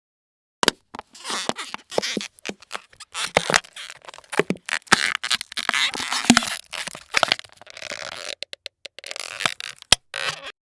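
A person making mouth sound effects: a quick, irregular string of clicks, pops, raspberries and hissing bursts.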